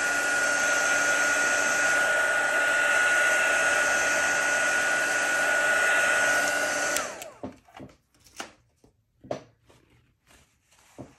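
Handheld craft heat tool blowing steadily, a fan rush with a high whine over it, drying wet ink on cardstock. About seven seconds in it is switched off and the whine falls away as the fan spins down, followed by a few faint clicks.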